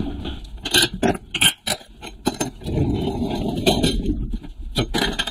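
A metal workshop trolley being wheeled across the floor, its wheels rumbling, with welded stainless steel exhaust pipe sections clinking and knocking against each other and the metal tray.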